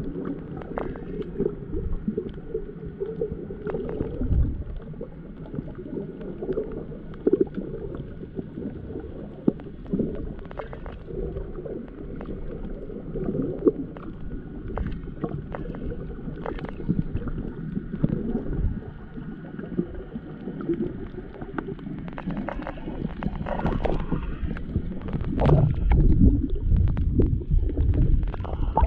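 Muffled water sloshing and gurgling, as heard by a camera in water during snorkeling, with scattered knocks and clicks. It grows louder near the end.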